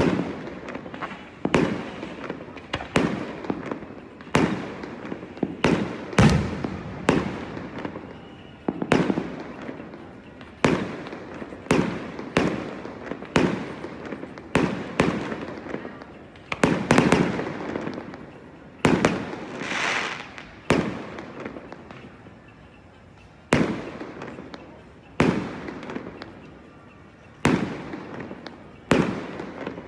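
Aerial fireworks display: shells bursting one after another, a sharp bang roughly every second and a half, each trailing off in a fading rumble. About twenty seconds in, a longer hissing, crackling burst.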